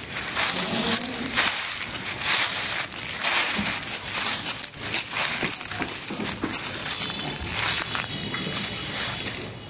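Footsteps crunching through a thick layer of dry fallen leaves: an unbroken run of crackling steps.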